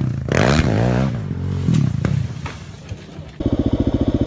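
Quad bike engine revving, its pitch sweeping up and down, with a few knocks. About three and a half seconds in it changes abruptly to a quad engine running with a fast, even pulsing beat.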